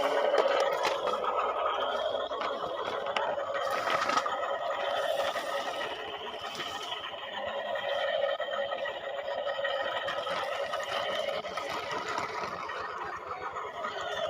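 Small electric motors and plastic gearboxes of radio-controlled construction models whirring steadily, with a few sharp clicks and scrapes.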